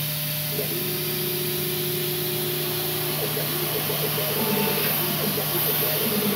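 CNC milling machine drilling an aluminium bar: a steady hiss from the coolant nozzles over the spindle's hum, with the irregular sound of the drill cutting starting about three seconds in.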